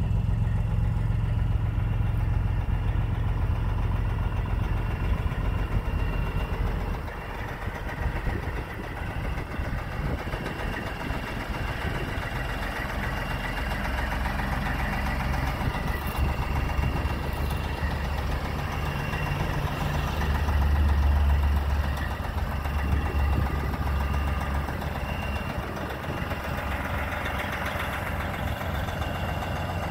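Heavy diesel truck engine idling steadily, the 1999 Sterling A9522 flatbed's. It grows louder for a couple of seconds about two-thirds of the way through.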